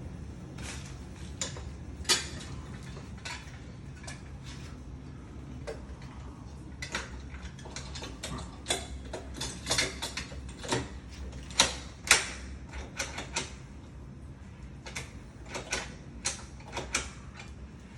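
Irregular metallic clicks and taps of door-lock hardware being worked by hand, thickest around the middle, over a steady low hum.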